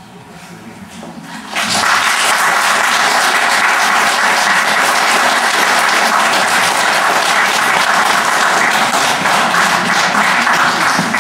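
Audience applauding, breaking out in full about a second and a half in after a quieter start, then holding steady.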